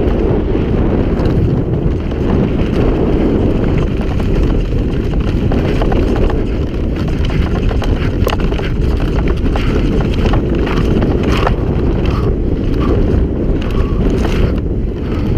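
Mountain bike descending a rough gravel and dirt trail at speed: a loud, steady rush of wind on the microphone over tyre noise, with scattered sharp clicks and clatter from stones and the bike over rough ground.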